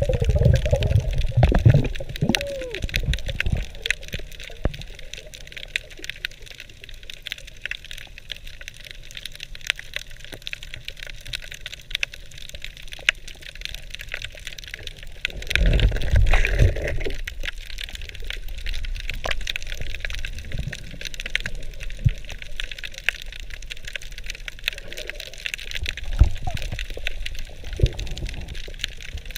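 Underwater ambience heard through the camera housing: a steady crackle of many tiny clicks, with swooshing water-movement surges near the start, about halfway and near the end.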